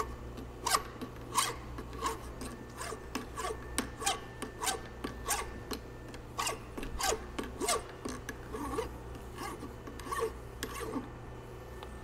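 A less aggressive hand file held flat, scraping across a metal driveshaft yoke clamped in a vise, in even back-and-forth strokes about two a second that stop shortly before the end.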